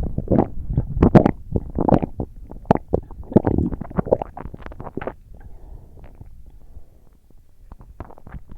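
Close-miked chewing and biting of crispy fried food, chicken nuggets and fries: a dense run of crunches and wet mouth sounds, easing off for a couple of seconds before resuming near the end.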